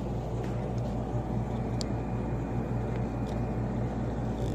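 A steady low hum with a few faint, short clicks.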